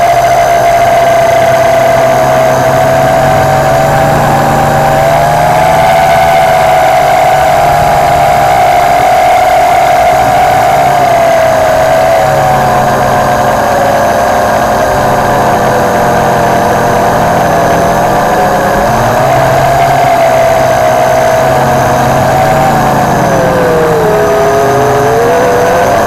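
WLToys V262 quadcopter's motors and propellers whining loudly, heard from a camera strapped to its frame. Several close tones waver in pitch together as the motors change speed, dropping briefly near the end.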